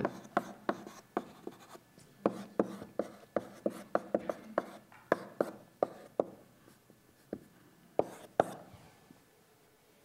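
Chalk tapping and scraping on a blackboard as words are written: a quick run of sharp, short taps for about six seconds, two louder taps a little before the end, then the writing stops.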